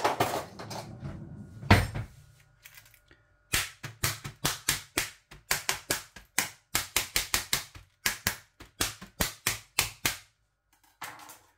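Plastic film lid on a microwave ready-meal tray being stabbed over and over with a utensil to pierce it: a quick run of sharp pops and taps, about three a second, lasting some six or seven seconds. Before it comes some rustling and one loud knock.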